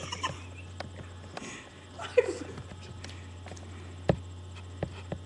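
A few sharp clicks of a spoon tapping against a cup, the loudest about two seconds in, together with a short vocal noise that falls in pitch, over a steady low electrical hum.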